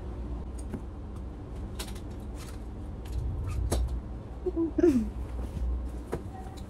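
Books and a plastic file being handled and stacked on a bed: scattered light knocks and rustles, over a steady low hum. A brief falling vocal sound comes near five seconds.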